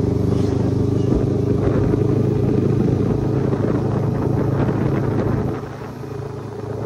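Kawasaki Ninja 300's parallel-twin engine idling steadily through a loud exhaust, growing quieter about five and a half seconds in.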